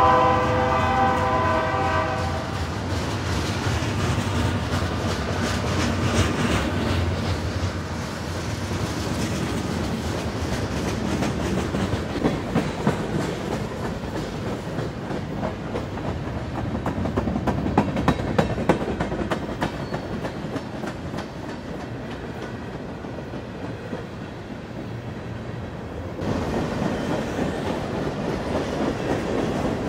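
Freight train cars rolling past close by: a steady rumble and clatter of steel wheels on the rails, with sharper wheel clicks in the middle. A locomotive's chord horn is sounding at the start and cuts off about two seconds in.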